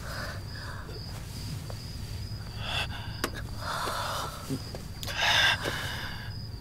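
People gasping, panting and giving short groans in pain, with a sharp hissing breath a little past five seconds in as the loudest sound.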